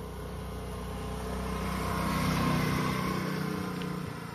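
Small motor scooter fitted with side wheels riding past. Its engine hum grows louder, is loudest about halfway through, then fades as it moves away.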